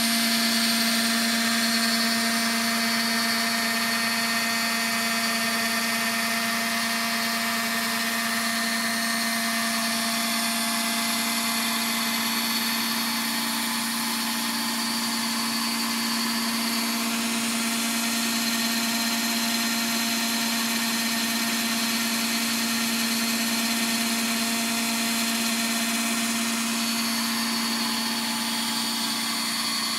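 Small electric motors of a rose engine running steadily as it cuts a rosette pattern into a turned wooden dome with a belt-driven cutter on a spherical slide rest. A constant hum with a faint high whine over a steady hiss.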